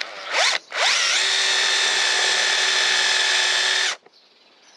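Bosch PSB 1800 Li-2 18 V cordless drill boring a 1 cm twist bit into pine: a brief blip of the motor, then it spins up and runs at a steady speed for about three seconds before stopping abruptly. It drills pine easily, without bogging down.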